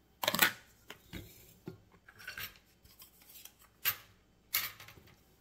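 Clear plastic sugar canister's latched lid being unsnapped and lifted off: a handful of short plastic clicks and rubbing scrapes, the loudest just after the start.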